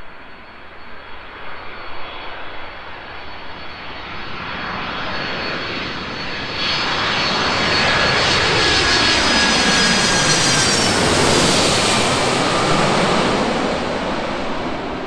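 Twin-engine jet airliner on final approach passing low overhead. Its engine noise builds, is loudest in the middle with high whining tones that fall in pitch as it passes, then starts to fade.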